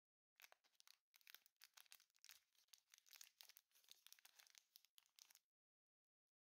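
Plastic snack wrapper crinkling and tearing as it is pulled open by hand, a quick run of crackles that starts about half a second in and stops about a second before the end.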